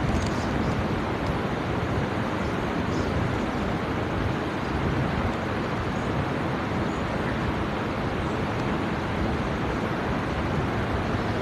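Steady rushing room noise with a low rumble and no voices: a crowded prayer hall with its ceiling fans running.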